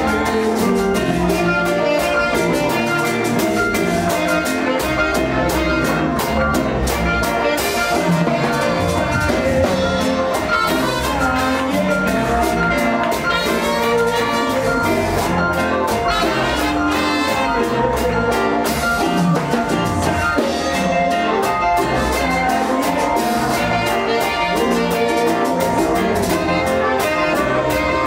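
Live band music: trumpets and saxophones over electric guitar, bass guitar, keyboard and drums, playing steadily.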